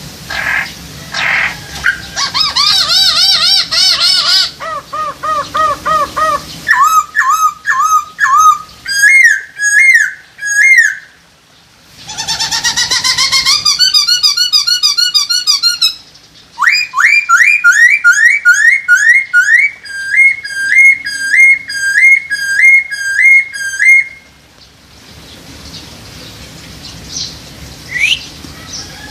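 Chinese hwamei singing: loud, varied whistled phrases, each a quick series of repeated notes, with a long run of fast rising slurred notes in the middle and only faint calls near the end.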